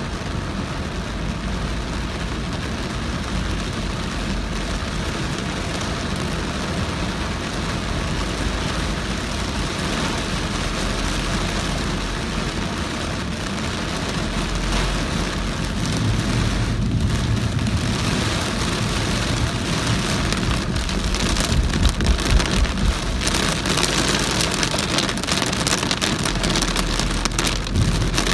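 Heavy rain pelting a moving car, with the car's engine and tyres on the wet road underneath. The downpour grows louder about halfway through, with a crackling surge a little later.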